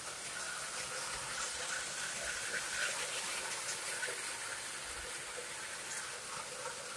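Three-rail O gauge model trains running around the layout: a steady whir of motors and wheels on the metal track, with faint scattered ticks.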